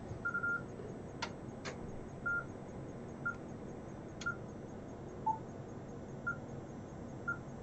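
Kenwood TS-890 transceiver giving a string of short beeps, about one a second, with one lower-pitched beep, and a few sharp clicks, as it carries out a macro's CAT commands one after another with a gap between each.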